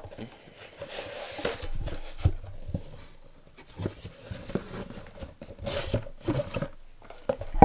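A cardboard box being slid off a block of foam packing and handled on a tabletop. There is a rubbing, scraping hiss about a second in, then several light knocks and taps.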